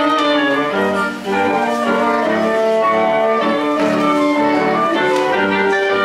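Woodwind sextet of flute, oboe, clarinet, French horn and bassoon with piano playing together live, a brisk passage of quick, changing notes.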